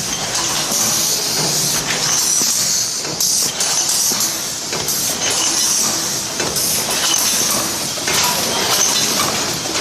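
Can-making machine running as it forms hemmed and clinched can seams: a steady hiss with many irregular metallic clicks and knocks.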